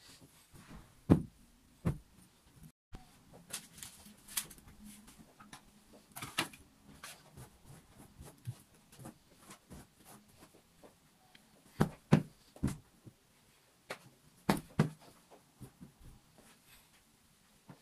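Household tidying: objects being picked up and set down, with scattered light clicks and knocks and a few heavier thumps, the loudest about a second in and again around twelve and fourteen seconds.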